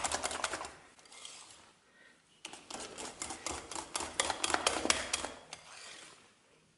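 Wire whisk beating thick choux paste in a bowl, its tines clicking rapidly against the bowl as the eggs are beaten in until smooth. The clicking stops for about a second and a half near the start, then resumes before fading near the end.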